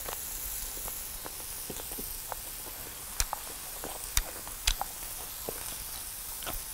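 Pork chops sizzling on a tabletop grill pan: a steady hiss with scattered sharp pops and crackles of spitting fat.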